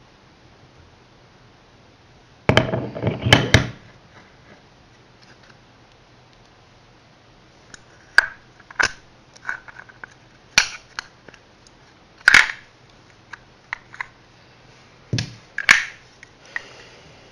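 Hand tools being handled: a short clatter of knocks about two and a half seconds in, then scattered sharp single clicks and taps.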